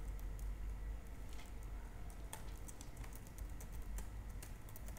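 Typing on a computer keyboard: irregular, scattered key clicks, over a low steady hum.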